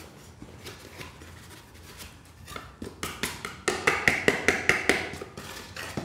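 Ajax powdered cleanser pouring from its canister with a faint soft hiss. From about two and a half seconds in comes a quick run of taps on the canister, about four a second, shaking the powder out, loudest in the middle of the run.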